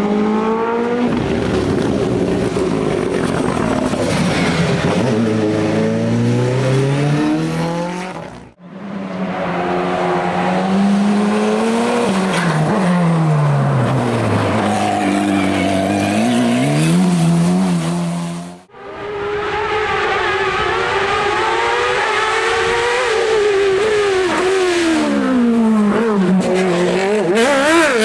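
Hillclimb race car engines run hard, their pitch climbing through the revs, dropping at gear changes and braking, then climbing again. The sound breaks off sharply twice, with a different car's engine after each break.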